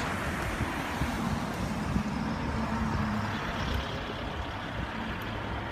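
Steady running noise of a road vehicle: a low hum under an even hiss.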